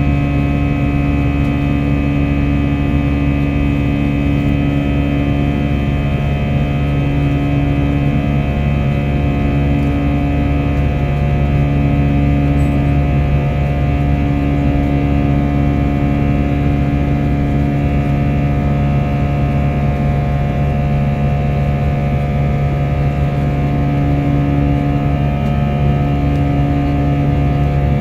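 Steady drone of an airliner's engines heard inside the cabin in flight, a low even rush with a constant hum under it; one higher hum comes and goes every few seconds.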